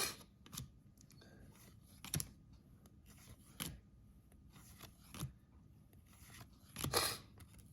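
Baseball trading cards handled by hand, one card at a time: a short papery swish or scrape about every second and a half, the last one near the end longer and louder.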